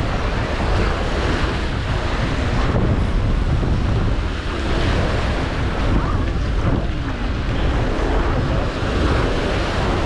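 Gulf of Mexico surf washing onto the beach, under a steady wind rumble on the microphone.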